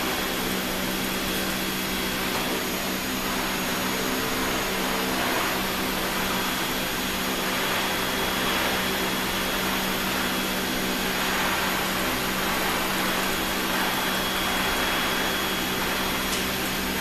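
Steady rush of air with a low, even hum under it from a running blower in the cone calorimeter setup, unchanging throughout.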